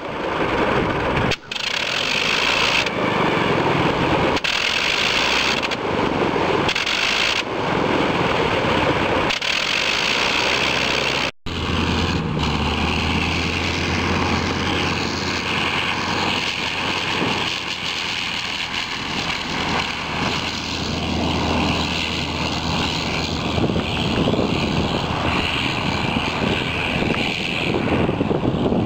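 Fokker Dr.I triplane's 80 hp Le Rhône nine-cylinder rotary engine running, its level rising and falling every second or two while the plane stands on the ground. After a cut it runs steadily with a deep low hum for the takeoff run and climb, slowly fading as the plane moves away. The power is uneven and surging on a new engine that is not making full power.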